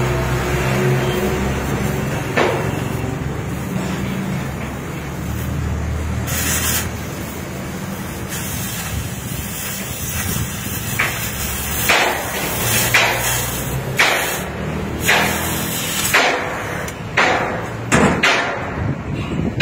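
Stick (arc) welding on a steel tank, a continuous sizzle and crackle over a low steady hum. From about halfway a series of sharp knocks follows, roughly once a second.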